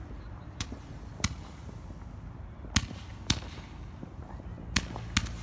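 Fireworks going off: about six sharp bangs at irregular intervals, the loudest two in the middle.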